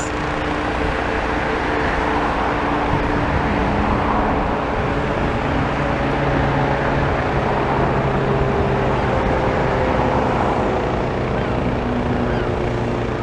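Steady drone of engines running, with several hum tones that slowly shift in pitch and come and go over several seconds.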